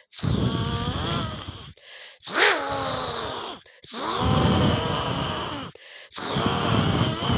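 A child imitating an animal call with the voice: a series of long, rough, groaning calls of about a second and a half each, with short breaths between. The call near the middle opens loudest, with a quick fall in pitch.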